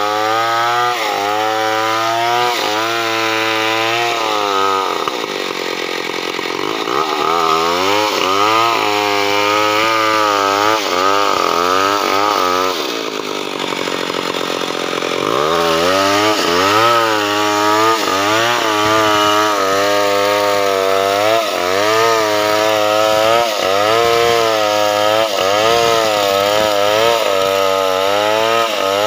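Powermate 070 two-stroke chainsaw ripping a mahogany log lengthwise, running under heavy load with its pitch wavering up and down about once a second. Twice the engine speed sags lower for a couple of seconds: about five seconds in, and again around the middle.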